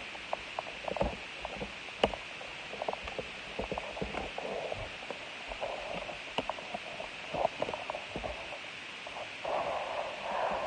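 Cardboard Topps Chrome blaster boxes being handled and opened, with foil card packs rustling and many light taps and clicks as the packs are pulled out; the rustling is busiest near the end.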